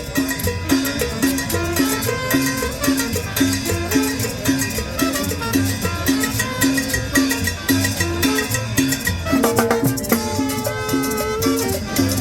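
Tropical Latin dance music with a steady bass and percussion beat. The bass beat breaks off briefly about nine and a half seconds in, then picks up again.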